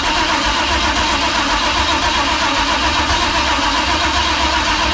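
Chevy 350 V8 being cranked over on its starter, a loud, even churning that does not catch and run, a sign that something in the ignition or fuel hookup is not yet connected.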